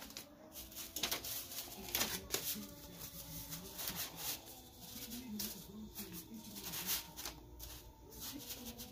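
Hand smoothing a sheet of paper laid over a sequin pillow: a run of short rustling, scratching strokes of paper and sequins being brushed flat.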